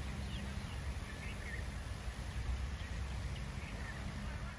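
Open-air field ambience: a steady low hum with faint, scattered bird chirps.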